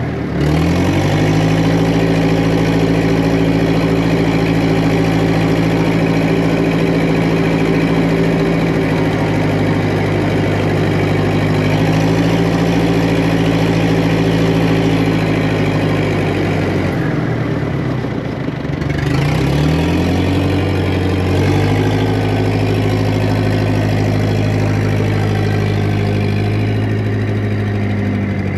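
Heavy diesel engine of earthmoving equipment working under load. It revs up just after the start and holds a steady high pitch, dips about two-thirds of the way through and climbs again, then drops away at the end.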